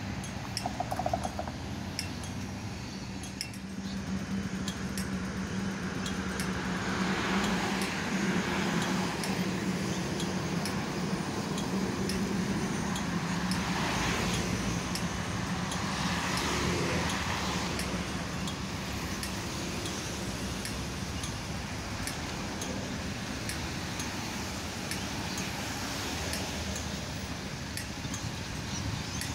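Street traffic with an articulated low-floor tram passing close by: a steady low hum and the noise of wheels and tyres that swells as the tram and cars go past near the middle, then settles. Faint short clicks run through it.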